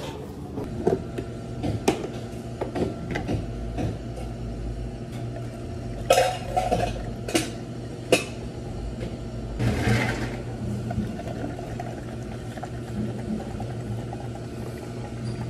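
Plastic cups and containers knocking and clattering on a steel counter, and milk pouring from a plastic jug into a plastic cup, over a steady low hum of café equipment.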